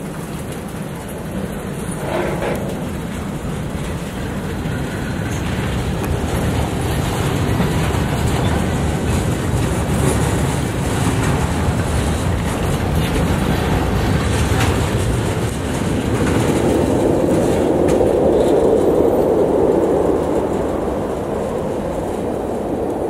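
Freight cars rolling past close by, their wheels clattering over the rail joints. Sharp knocks come through now and then, and the rolling noise swells for a few seconds near the end.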